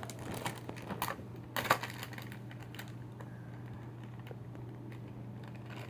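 Light clicks and taps from handling a just-opened blind bag and the small plastic mini toy train inside, several in the first two seconds and then only a few faint ticks, over a steady low hum.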